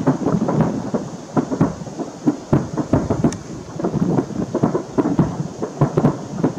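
Aerial firework shells bursting in a dense, irregular barrage of overlapping booms and cracks, several every second.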